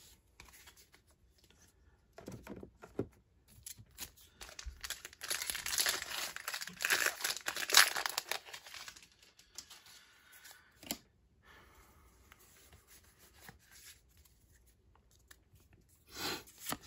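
Foil wrapper of a Pokémon Battle Styles booster pack crinkling and being torn open, loudest from about five to eight seconds in, with a few light handling clicks before it.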